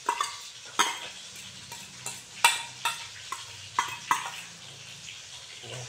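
Stainless-steel bowl knocking and scraping against a ceramic plate as chopped onion and chili are tipped and shaken out of it: a series of sharp, uneven clinks, about a dozen in all.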